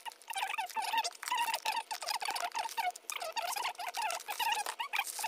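Scissors cutting through a taped cardboard package: a continuous scratchy, crackling rasp as the blades work through the tape and card.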